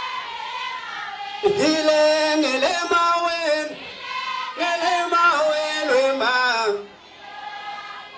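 A man singing into a microphone at a live performance, in long held phrases that bend in pitch. Two louder phrases come in succession, and it drops quieter near the end.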